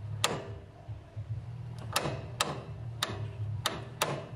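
Parking brake pedal and release mechanism of a 1964 Chevrolet Impala wagon being worked by hand, giving about seven sharp metallic clicks at uneven intervals as the ratchet and linkage engage and release. A steady low hum runs underneath.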